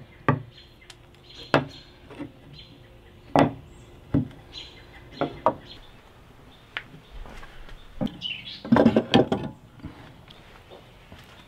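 Hand tools and wood pieces knocking on a wooden workbench: a few separate sharp knocks, then a quick clatter of tools being handled about eight to nine and a half seconds in.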